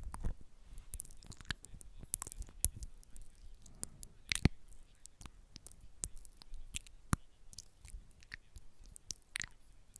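Close-miked ASMR tapping and handling sounds: irregular soft clicks and taps, the loudest about four and a half seconds in.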